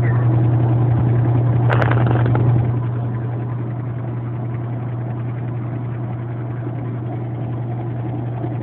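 A steady low hum, as of a motor running. A short noisy burst comes about two seconds in, and after it the hum goes on a little quieter.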